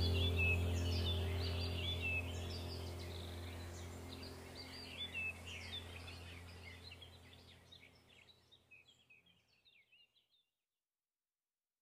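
Birds chirping over a steady low hum, the whole bed fading out smoothly to silence about ten seconds in.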